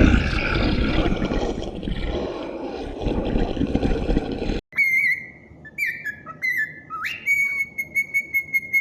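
A rough, noisy sound for about four and a half seconds, cut off sharply. Then a high whistling: a few short notes that glide up and down, and a long held note with a slight pulse near the end.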